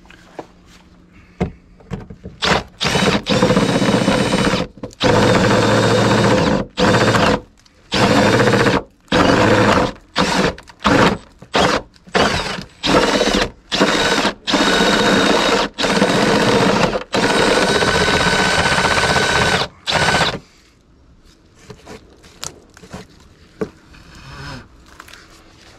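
Cordless drill boring into painted wooden siding to widen a hole, run in repeated bursts, some under a second and some a few seconds long, about a dozen times. The drilling stops a little past two-thirds of the way through, leaving only faint small knocks.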